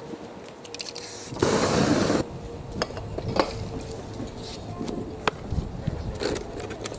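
A short burst of spray paint hissing from an aerosol can, under a second long, starting about a second and a half in. It is followed by scattered light clicks and knocks as the paper sheet is handled and lifted off the canvas.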